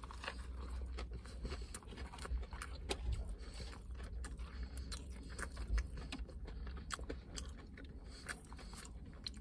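Biting into and chewing a crispy breaded chicken burger: a run of small crunches and mouth clicks over a steady low rumble.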